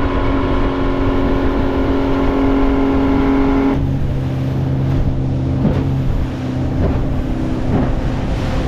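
Small fishing boat's motor running under way at speed, its tone shifting down about four seconds in, with a few light knocks in the second half.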